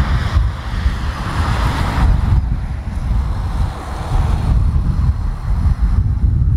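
Wind buffeting the microphone outdoors: a heavy, uneven low rumble with a hiss above it that dies down in the second half.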